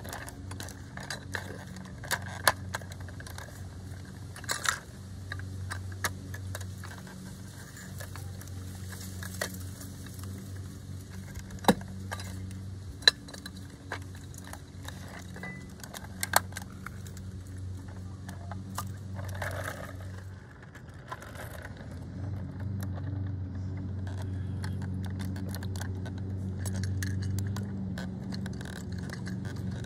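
Scattered light clicks and metallic rattles from a First Gear die-cast front-loader garbage truck model as its lift arm and toy can are worked by hand, a few clicks much louder than the rest, over a low steady hum.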